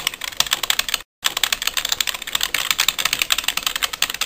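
Typing sound effect: rapid key clicks keeping pace with title text being typed out letter by letter, with a brief pause about a second in.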